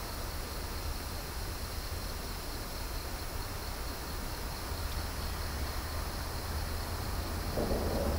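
Steady outdoor drone of insects, with thin constant high-pitched tones over an even hiss and a continuous low rumble underneath. A louder, lower sound swells in near the end.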